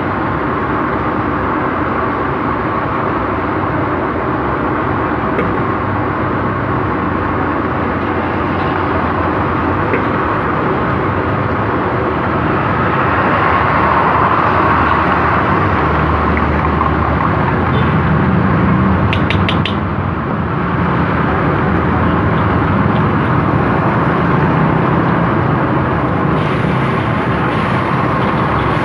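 Steady, loud rushing noise of fried rice being cooked in a wok over a gas burner, with a few quick metallic clinks about two-thirds of the way through.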